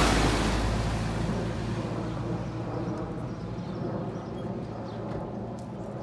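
A road vehicle passing, loudest at the start and fading away over about two seconds, followed by quiet street ambience with a few faint ticks.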